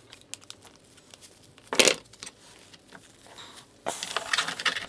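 Handling noise from a brush draft-excluder strip with an aluminium backing being worked by hand on a workbench: scattered light clicks, a short sharp rasp about two seconds in, and crackly rustling of the bristles near the end.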